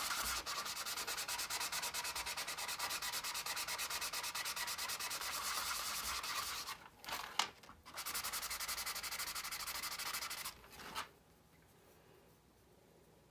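Sandpaper rubbed by hand in rapid back-and-forth strokes over a 3D-printed plastic part, wearing down a bubbled-up layer to bring it flush with the surface. The sanding breaks off briefly about seven seconds in, resumes, and stops about eleven seconds in.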